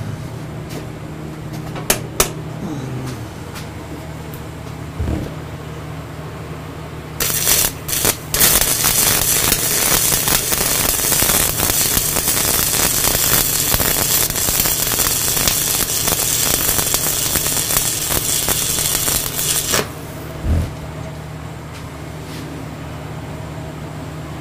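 Stick (arc) welding: the electrode strikes with a couple of short sputters about seven seconds in, then burns with a steady crackle for about twelve seconds while laying a tack weld on steel plate, and cuts off. A steady low hum runs underneath.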